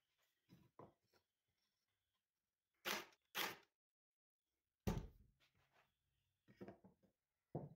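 Pine crate boards and wooden blocks being handled and set down on a wooden workbench: scattered light knocks, two short rushes of noise about three seconds in, and a sharper knock about five seconds in.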